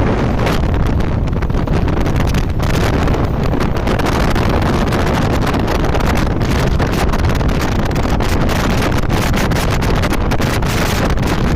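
Wind buffeting the microphone: a loud, steady rushing rumble with constant crackling.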